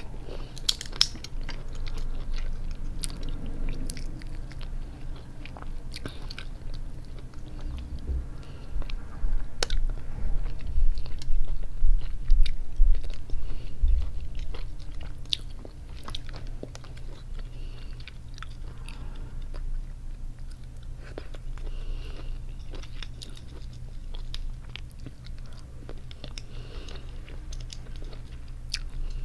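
Close-up eating sounds of cooked crab: chewing and biting, with small clicks and cracks as pieces of crab shell are picked apart by hand. A louder stretch of low thumps comes about eight to fifteen seconds in.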